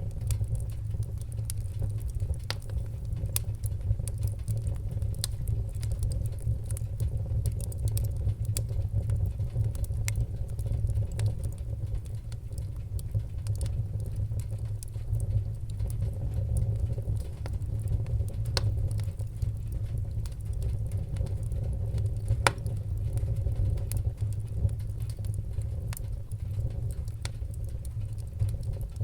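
Wood fire crackling, with irregular sharp pops and snaps over a steady low rumble; a few louder pops stand out.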